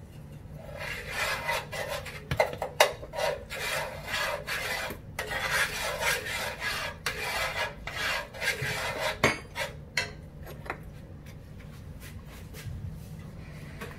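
Metal spoon stirring and scraping food around a cast-iron skillet, a quick run of rasping strokes that stops about ten seconds in.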